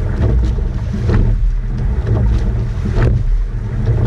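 Coxed racing eight under way: wind rumbling on the boat-mounted microphone, with a clunk and splash from the oars repeating at each stroke, about one stroke every two seconds.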